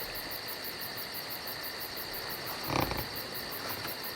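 Steady chirping of crickets as a night-time background sound effect. About three seconds in comes one brief, louder low sound.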